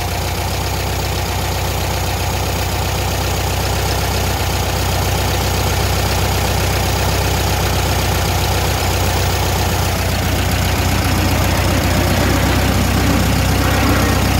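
Air-cooled Volkswagen flat-four engine idling steadily at about 850–900 rpm while its carburettor's idle mixture is adjusted, the carburettor audibly sucking air. It grows slightly louder through the second half.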